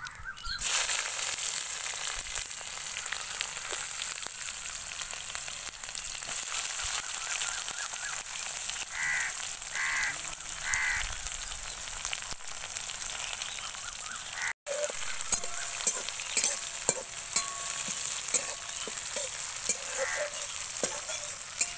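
Sliced onions frying in hot oil in an aluminium wok, with a steady sizzle that starts suddenly about half a second in as they go into the pan. After a short break in the sound, a metal spatula stirs and scrapes them, adding repeated sharp clinks.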